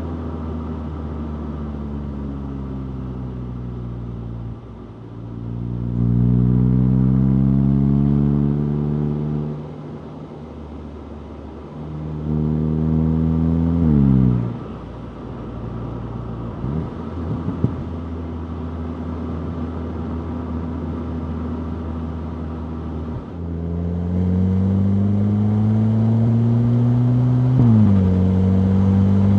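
Stock 2025 VW Golf GTI 8.5's turbocharged 2.0-litre four-cylinder engine in normal driving. Its note first falls as the car slows, then rises under acceleration three times, each climb ending in a quick drop in pitch at a gear change or lift-off. In the middle it holds a steady cruise.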